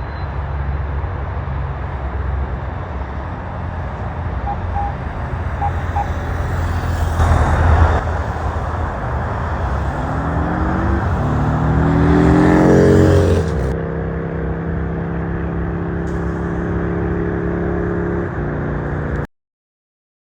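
Motor vehicles passing with a steady low rumble. About ten seconds in, one engine rises in pitch as it accelerates, then holds a steady note until the sound cuts off abruptly.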